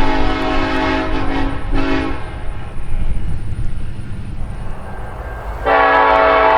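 Nathan K5LLA five-chime locomotive air horn sounding: a long blast that breaks off about a second and a half in, a short blast right after, then a pause over the train's low rumble before another long blast starts near the end.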